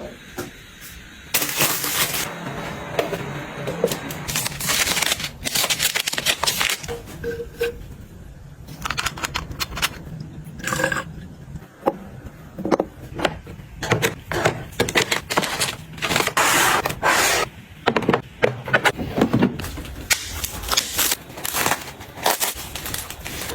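Close-up handling sounds of items being picked up, set down and arranged: a busy run of sharp clicks and taps with stretches of rustling and scraping.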